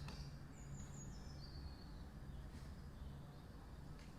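Quiet background with a steady low hum, and a few faint, high bird chirps during the first two seconds.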